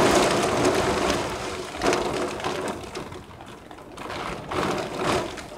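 Heavy rain pouring down in a severe storm, with gusts of wind that make the sound swell and fade several times.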